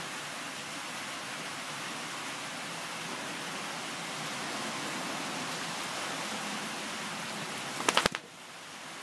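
Steady hiss of rain falling. About eight seconds in, a quick cluster of three or four loud, sharp knocks.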